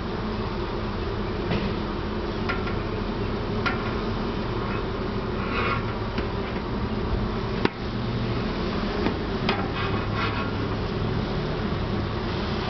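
Honey bees buzzing at a feral colony's entrance crack in a tree trunk, a steady hum of many bees close to the microphone. A single sharp click comes about two-thirds of the way through.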